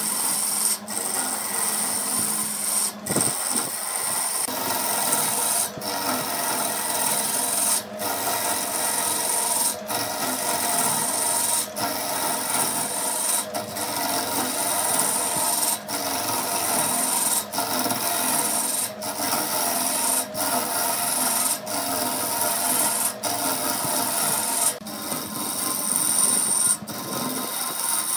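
A tool rasping against wood, a continuous scraping sound broken by brief gaps every one to two seconds.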